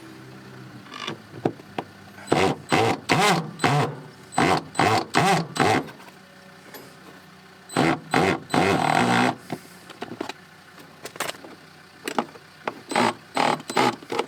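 Power drill driving screws in, its motor run in short pulses: a quick string of bursts, one longer run about eight seconds in, then more short bursts near the end.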